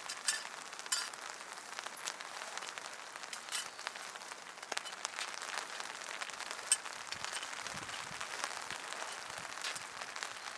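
Wood campfire crackling, with a steady hiss and irregular sharp pops, one louder pop a little after halfway.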